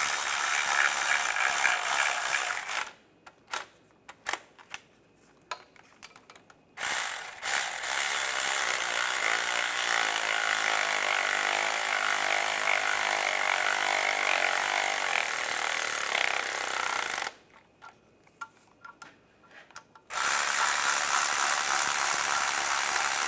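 Cordless electric ratchet running in three long spells, driving bolts down through a socket and extension. Between the spells there are short clicks and knocks as the socket is moved to the next bolt.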